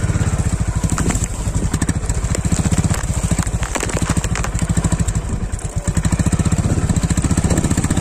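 Motorcycle engine running under way with a rapid, even throb, dipping briefly about five and a half seconds in.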